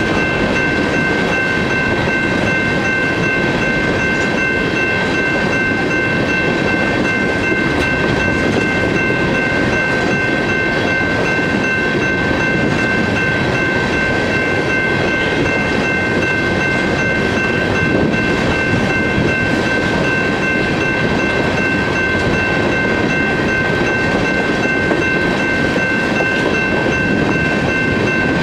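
An empty coal train's open-top cars rolling steadily past, wheels rumbling and clattering on the rails. Steady high-pitched ringing tones run unchanged over the rumble.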